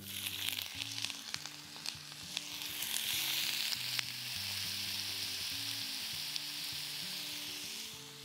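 Rounds of frozen pea-based vegan sausage dropped into hot olive oil in a frying pan, with a few small clicks as the pieces land, sizzling. The sizzle grows over the first few seconds and then holds steady.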